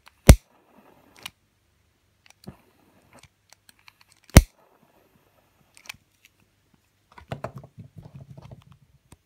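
Long-nosed utility lighter's piezo igniter clicking twice, about four seconds apart, while lighting the new cotton wick of a spirit burner. A few faint ticks come between, and near the end there is a short spell of low rustling.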